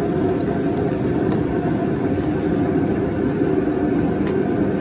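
Steady low rumble of a running motor vehicle, with a few faint light clicks scattered through it.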